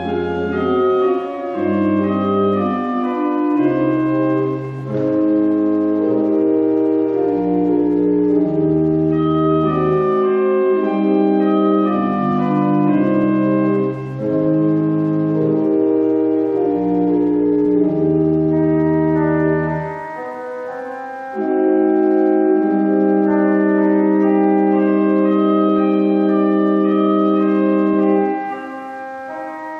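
Pipe organ playing a slow piece in held chords over a stepping bass line, settling on a long sustained chord that is released shortly before the end.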